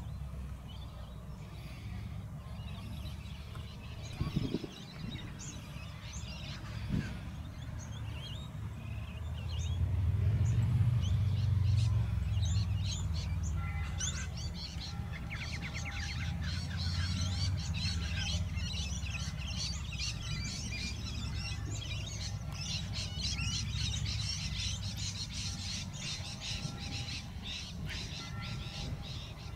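Small birds chirping, many quick calls that grow thick from about halfway through, over a low rumble of wind on the microphone that is strongest about ten seconds in.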